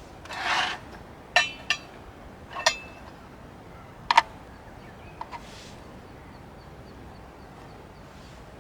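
Small objects being handled: a short scraping rustle, then a string of sharp clicks and knocks, the last two close together, and a couple of faint ticks.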